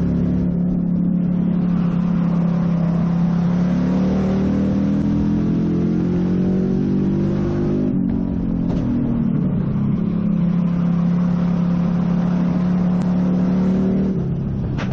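Roadrunner stock car's race engine heard from inside the stripped, roll-caged cockpit, pulling hard with its pitch climbing slowly. About eight seconds in the driver lifts off and the pitch drops, then the engine pulls up again and holds. Near the end it backs off once more.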